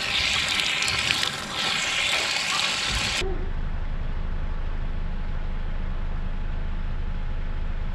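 Water running hard from an outdoor tap and splashing over fishing gear being rinsed with fresh water, cut off suddenly about three seconds in. After that comes a steady low rumble of wind on the microphone.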